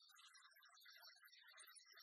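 Faint background music with quick, light notes over a soft recurring low pulse.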